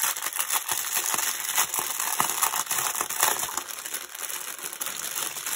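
Plastic packaging of a strip of small bags of diamond painting crystal drills crinkling and crackling continuously as it is handled.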